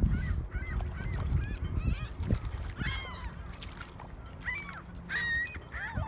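A flock of waterbirds calling: many short, high calls that rise and fall, overlapping one another, over a low rumble.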